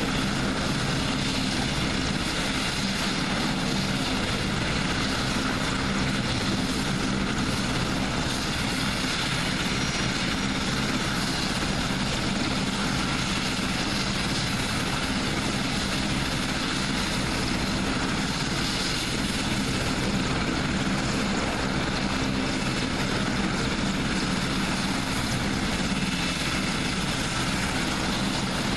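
AgustaWestland HH-101A Caesar helicopter running on the ground with its rotors turning. Its three turboshaft engines and rotors make a steady, unchanging noise.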